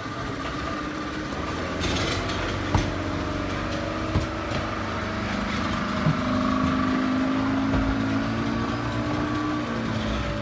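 Several outboard motors on a speedboat running and revving up as the boat pulls away from the jetty, their note rising gradually over the second half. A few sharp knocks early on.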